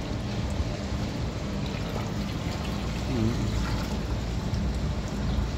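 Water pouring from a rubber hose into a partly filled stainless-steel tank, splashing steadily onto the water surface.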